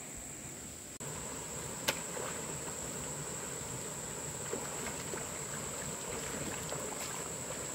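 A steady high-pitched drone of insects over the rushing of a muddy stream, with a sharp click about two seconds in and a few faint splashes and ticks as someone wades through the water.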